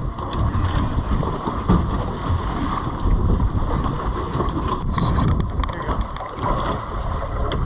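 Wind buffeting the microphone on a boat in choppy sea, with a steady rumble and water washing around the stern. From about five seconds in come a scatter of small sharp clicks.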